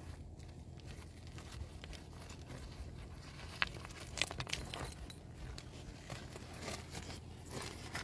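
A pig rooting with its snout among river pebbles: scattered clicks and crunches of stones being nudged and knocking together, a few sharper ones about halfway through and near the end.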